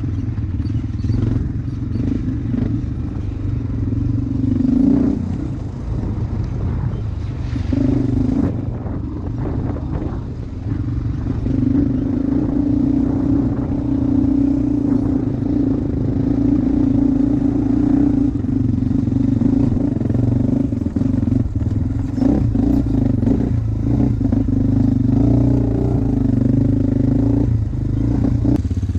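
A vehicle engine running steadily under way, its drone rising and easing at times, with rattles and clatter over it.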